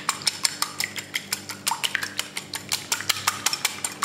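Raw eggs being whisked by hand in a ceramic bowl: the whisk clicks quickly and evenly against the bowl, about six strokes a second.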